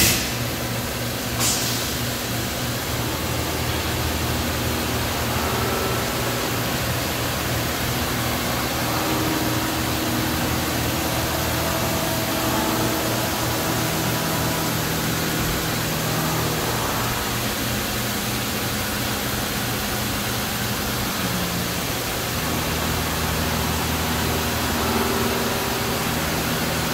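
Steady mechanical hum of running machine-shop equipment, with several hum tones that step up and down in pitch every few seconds, and a single sharp click about a second and a half in.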